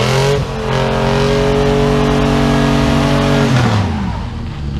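Pickup truck engine revved hard under load while pulling against another truck: the revs climb at the start, hold high and steady for about three seconds, then drop back near the end.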